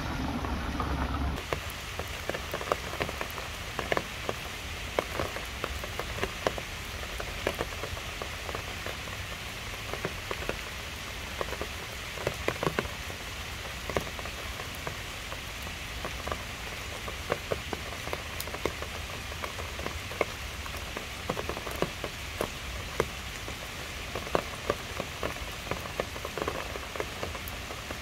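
Steady rain falling on leaves, grass and wet paving, with irregular louder drops landing close by. For about the first second and a half a car's low rumble sounds under the rain, then cuts off abruptly.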